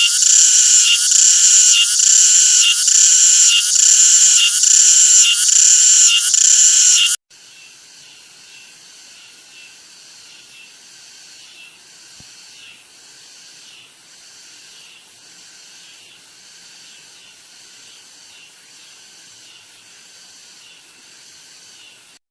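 Cicadas calling: a loud, high, rasping buzz that swells in pulses about three times every two seconds, cutting off abruptly about seven seconds in. A much fainter cicada buzz with a softer pulse follows.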